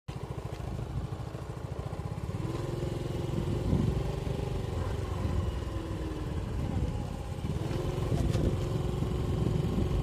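Small motor scooter's engine running while it rides along, with a whine that comes in about two and a half seconds in and again near eight seconds.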